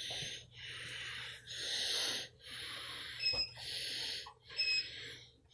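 A person breathing heavily close to the microphone: about five breaths in a row, each lasting most of a second, with short gaps between.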